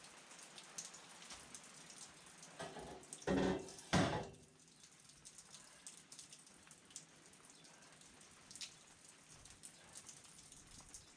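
Stainless steel coolant pipes and their packaging being handled: light crackly rustling and scattered small clicks, with two louder knocks about three and four seconds in.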